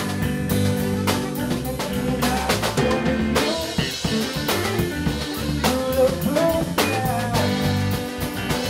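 Live rock band playing an instrumental passage with no vocals: drum kit with snare rimshots and bass drum on a steady beat, bass and electric guitar, and a lead line that bends in pitch.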